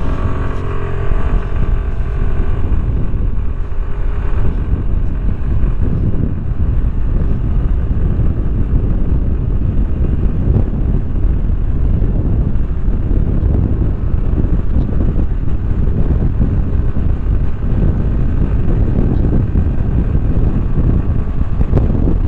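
Suzuki Burgman Street 125 scooter's single-cylinder engine accelerating at full throttle on a top-speed run. Its engine note is clear for the first few seconds, then heavy wind buffeting on the microphone and road rumble take over as the speed builds.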